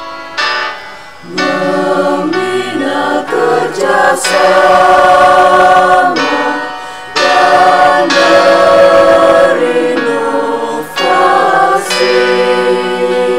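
A choir singing a hymn in Indonesian, in long held chords. The singing dips briefly about a second in and again about seven seconds in, between phrases.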